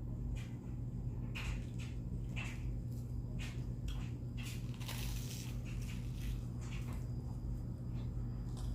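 Close-miked biting and chewing of a toasted-bread breakfast sandwich, with short crunchy crackles at irregular intervals over a steady low hum.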